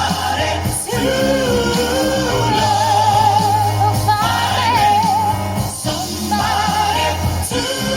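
Live pop singing over an amplified backing track, with long, wavering held notes and vocal runs above a steady bass.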